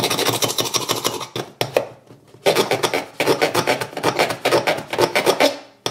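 Knife blade scraping quickly back and forth along the aluminium side frame of an iPhone 8 Plus, a rasping run of rapid strokes, scratching the frame. The scraping breaks off for about a second partway through, then resumes.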